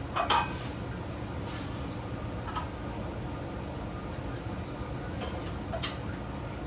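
Steady rushing noise of a commercial kitchen's gas burner and ventilation while the wok heats. Light clinks of dishes and utensils cut through it: two close together right at the start, one about two and a half seconds in, and one near the end.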